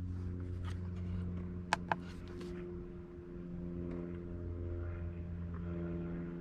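Electric parking brake actuator motors on the rear calipers of a 2018 BMW X3 (G01), whirring steadily as they wind the brake back into the service position for a pad change. Two short clicks come just under two seconds in.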